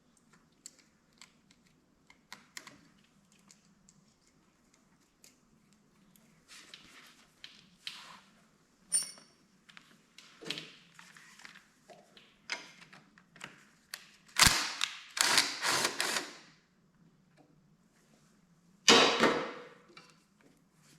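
Hand-tool and parts handling on a lawn tractor engine: scattered small clicks and clinks, with louder rattling scrapes about fourteen seconds in and again about nineteen seconds in.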